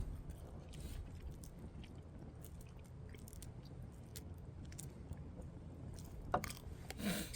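A person chewing crunchy food, with faint scattered crunches, a sharper crunch about six seconds in, and a low steady rumble underneath.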